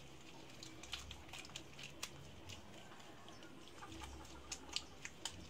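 Faint wet squishing and clicking of soapy hands rubbing together, wrist against wrist.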